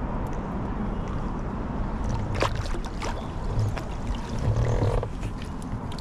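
A fish being netted beside a kayak: water splashing around the landing net, with a few sharp knocks of gear against the kayak, over a steady low rumble.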